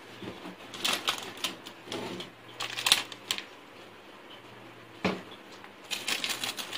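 Rapid, irregular clicks and taps of a spoon and spice containers being handled while spice powder is measured out. They come in two spells: from about a second in to past three seconds, then again from about five seconds on.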